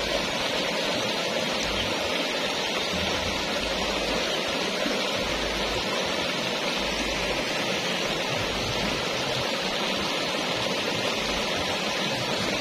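Steady rushing of a shallow, fast-flowing river.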